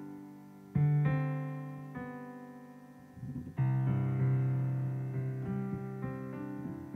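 Background piano music: slow sustained chords that ring and fade, a new chord struck about a second in and another about halfway.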